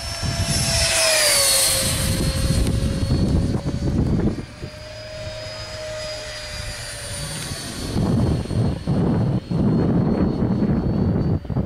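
A 75 mm electric ducted fan on an RC model jet whines at high speed as the jet makes fast passes. Its pitch drops about a second in as it flies by, then climbs again midway. A low rumbling noise comes and goes underneath.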